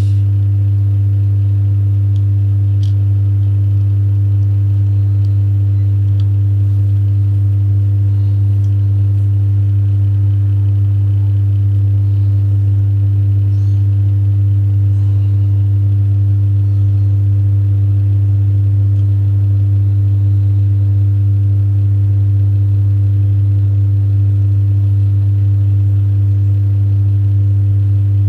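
Steady low electrical hum with fainter higher overtones, unchanging throughout, with a few faint ticks in the first few seconds.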